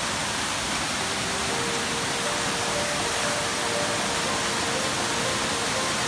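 Twin waterfall pouring into its plunge pool: a steady, even rush of falling water.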